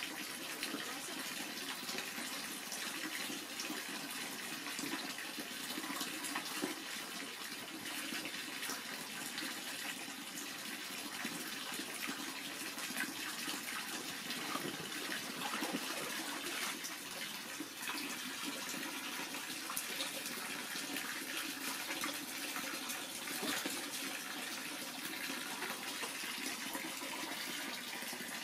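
A stream of water pouring steadily into an inflatable paddling pool, with light splashing in the water.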